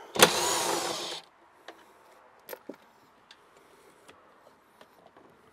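A power tool runs in one loud burst of about a second, backing out one of the 10 mm bolts that hold a plate under the dash. It is followed by scattered light clicks and taps of parts being handled.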